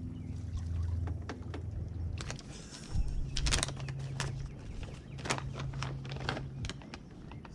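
Steady low hum of a small electric motor on a boat. About three seconds in it jumps higher in pitch with a thump, while a run of sharp knocks and rattles sounds over it.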